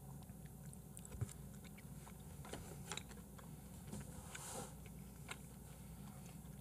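Faint wet chewing with small mouth clicks: a man eating raw beef tartare (yukhoe), over a low steady hum.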